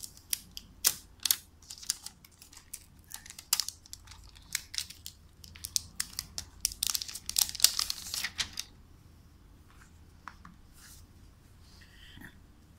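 Plastic packaging film crinkling as it is pulled off a new phone: a dense run of sharp crackles that stops about nine seconds in, followed by a few faint handling ticks.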